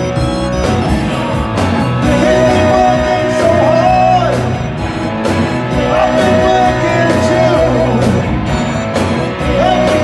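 Live rock band playing with electric guitars, bass, keyboards and drums. Regular drum and cymbal hits run under a lead line that holds long notes three times.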